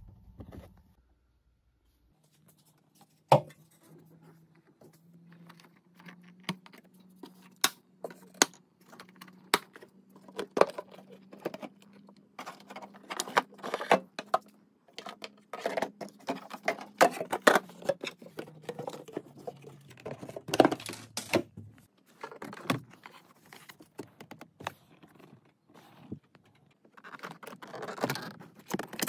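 Irregular plastic clicks, knocks and rattles of a Honda Odyssey's engine air filter housing and filter being handled, and later of the glove box being opened to reach the cabin filter. Under the clicks there is a steady low hum that stops about two-thirds of the way through.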